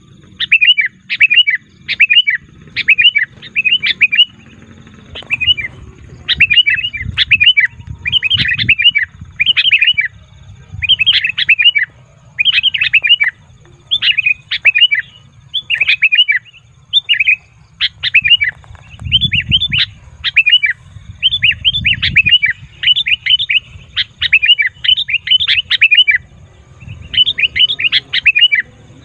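Sooty-headed bulbul calling noisily: short, loud bursts of bubbly chirping phrases, about one every second, with brief pauses between them.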